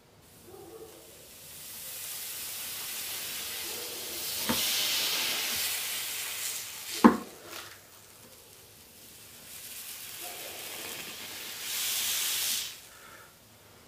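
Hot axe blade sizzling and hissing as it melts down into an ice cream cone. There is a sharp knock midway, then a second stretch of sizzling that cuts off suddenly near the end.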